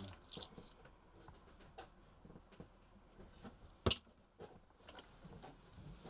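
Small clinks and knocks of tools and small metal objects being handled and moved about on a cluttered workshop shelf, with one sharp clack about four seconds in, the loudest sound.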